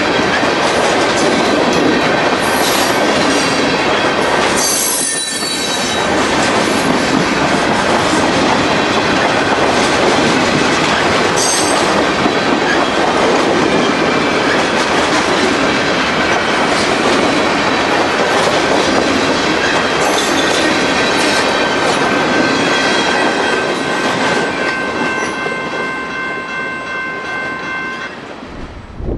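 Freight train of covered hopper cars rolling past close by, wheels clattering over the rails with a thin steady squeal and a couple of brief high screeches. Near the end the last cars pull away and the noise fades, while several steady high tones sound together.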